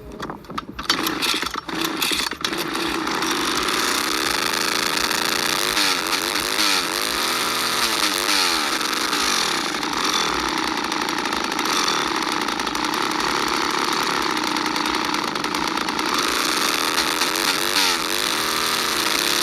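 Poulan 306A two-stroke chainsaw starting with a few irregular sputters, then running steadily from about two and a half seconds in, revved up and down several times. The engine sound cuts off suddenly at the end.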